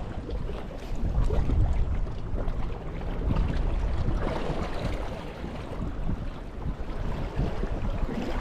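Wind buffeting the microphone in uneven gusts, with a low rumble that swells and eases, over a faint wash of sea water.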